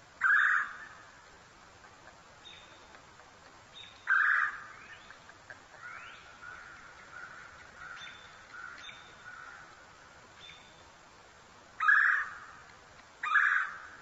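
Red-bellied woodpecker calling: four short, loud calls, one at the start, one about four seconds in and two close together near the end, with fainter chirps and a rising note in between.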